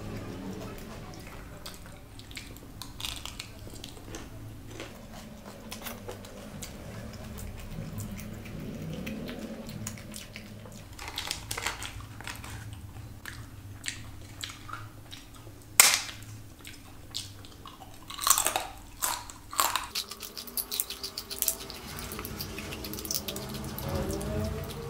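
Close-miked eating sounds: wet chewing with small clicks of the mouth, then, about two-thirds of the way through, several loud sharp crunches of biting into a crisp aloo papad.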